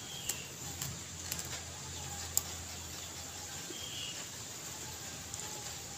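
Chewing of raw putat leaves, with a few sharp, crisp mouth clicks in the first two and a half seconds. Faint bird chirps come in now and then.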